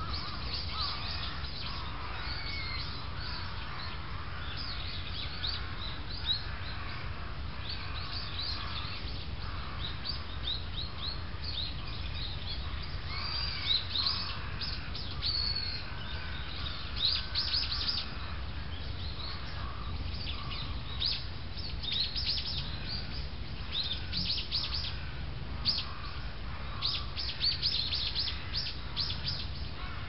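Wild songbirds calling: many short, high chirps, coming thicker in quick runs in the second half, over a steady low rumble.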